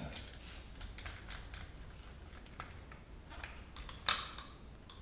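Small ticks and scrapes of a screwdriver turning a screw tight in an airsoft M4's receiver, with a sharper click about four seconds in.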